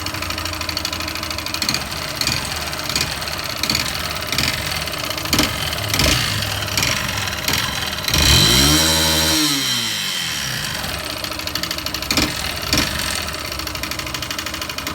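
Yamaha Fazer 150's single-cylinder engine idling with irregular sharp knocks, revved once about eight seconds in. The noise comes from a scored piston, its skirt badly scratched, along with a worn timing chain.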